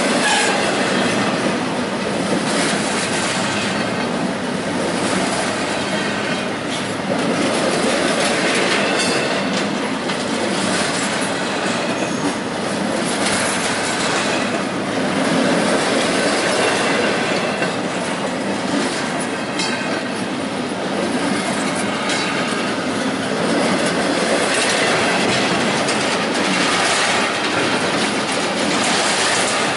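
Empty BNSF double-stack intermodal well cars of a freight train rolling past close by: a steady noise of steel wheels running on the rails, with a few brief high-pitched squeals along the way.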